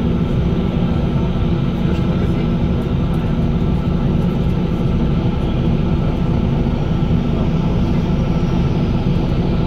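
Steady low drone of a moving bus, engine and road noise heard inside the cabin.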